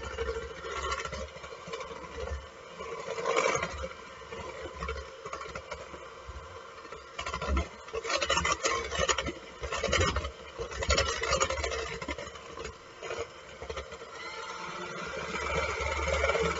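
Electric mixer running, beating cake batter, with a low motor hum and louder spells of beaters churning and rattling in the bowl.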